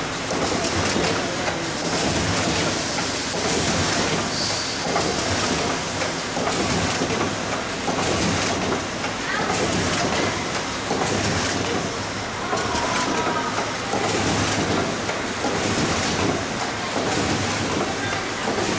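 An SZD-106 automatic three-colour UV screen printing machine running: a steady, dense mechanical noise with many small clicks and knocks, holding an even level throughout.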